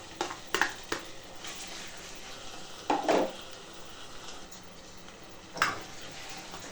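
Egg frying in oil in a pot with a faint steady sizzle, while a spoon scrapes and knocks against the pot a few times. The scrapes are loudest about three seconds in and again near the end.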